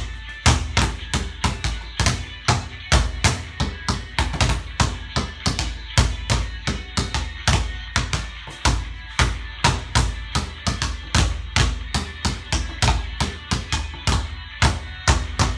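A basketball being dribbled hard on a court floor in a fast drill, bouncing about three to four times a second.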